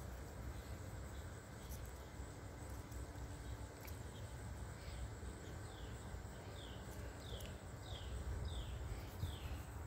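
Faint outdoor background with a low rumble; from about halfway a bird gives short falling chirps, repeating about twice a second.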